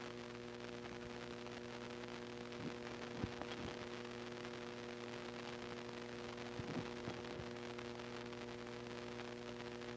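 Steady electrical mains hum with several even tones and a background hiss on a raw satellite news feed's audio, with a few faint ticks over it about three and seven seconds in.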